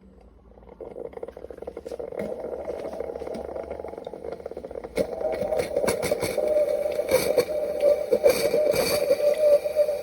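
Instant Pot single-serve K-Cup coffee maker brewing: its pump hums steadily while the water sputters and crackles through, getting louder about halfway through. The owner is unsure whether the pump has failed, since the machine puts out coffee that is like water.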